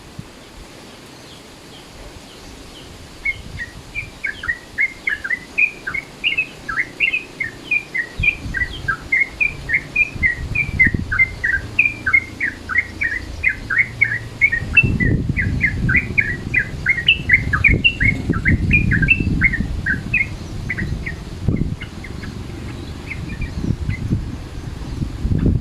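Yellow-vented bulbul (trucukan) singing, a fast, continuous run of short bubbly chirping notes that goes on for some twenty seconds and fades out near the end. A low rumbling noise sits underneath from about a third of the way in.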